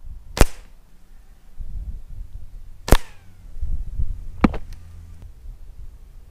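Three sharp shots from a .25 Hatsan Striker spring air rifle, the second about two and a half seconds after the first and the third a second and a half later, the second followed by a brief ring. Low rumbling noise runs between the shots.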